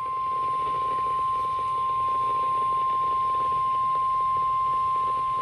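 Weather radio warning alarm tone: one steady, unbroken high beep over a bed of radio static hiss from weak reception. The tone signals that an urgent warning message is about to be broadcast.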